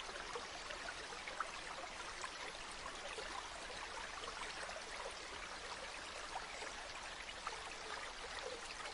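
Mountain stream running steadily over rocks, with many small splashes and trickles.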